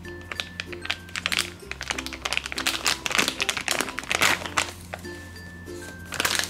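Crinkly plastic packaging bag crackling and rustling irregularly as a foam squishy is worked out of it, busiest around the middle. Background music with held bass notes and a simple melody plays underneath.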